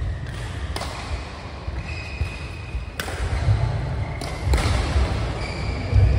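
Badminton rally in a large hall: rackets sharply striking the shuttlecock about three times, with rubber-soled shoes squeaking on the court mat and thuds of footwork.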